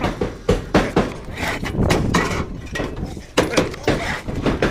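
A quick, irregular series of clicks and knocks, like hand tools and lumber being handled.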